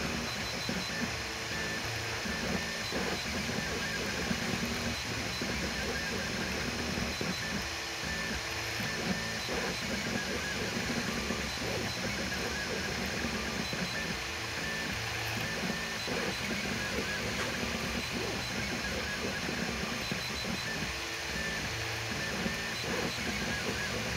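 FDM 3D printer running a print: its stepper motors whine in short tones that keep jumping in pitch as the axes move, over the steady whir of the cooling fans.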